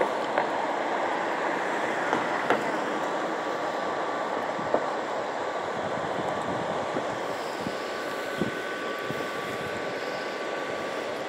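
Steady rushing of moving river water, with a few light clicks, and a faint steady whine that joins in over the last few seconds.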